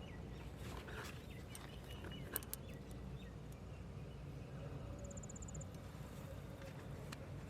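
Steady low outdoor background noise with a short, rapidly pulsed, high-pitched insect trill about five seconds in, and a couple of faint sharp clicks about two and a half seconds in.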